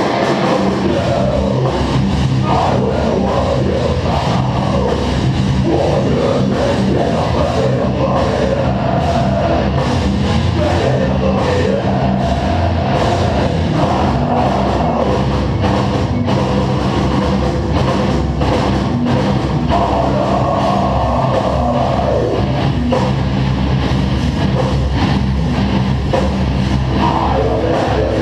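Live heavy rock band playing at full volume: distorted electric guitars, bass and a pounding drum kit, heard from within the crowd.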